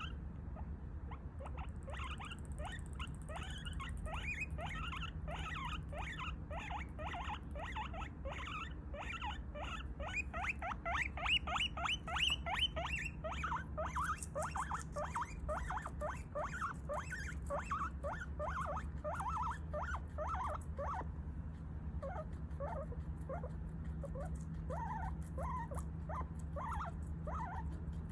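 Guinea pig wheeking: a long, unbroken run of short rising squeaks, several a second, loudest about halfway through. It is the begging call of a guinea pig waiting for a late snack.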